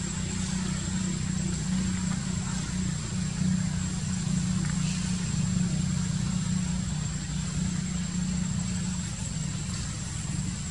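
Steady low engine rumble running without a break, with a thin steady high-pitched whine above it.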